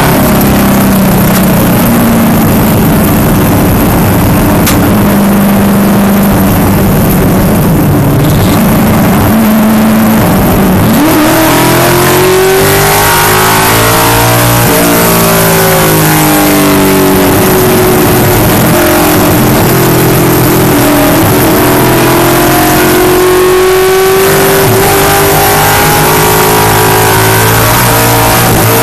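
V8 engine of an SCCA American Sedan Camaro race car at speed on track, very loud. Its pitch holds fairly steady for about ten seconds, then climbs sharply and keeps rising and dropping as the car accelerates and shifts through the lap.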